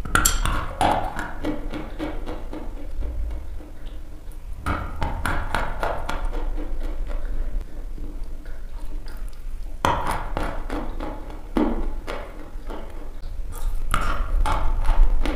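A stick of dry pressed chalk being bitten and chewed close to the microphone: sharp, crisp crunching, with a fresh bite about every four to five seconds followed by a run of smaller crunching chews. A steady low hum sits underneath.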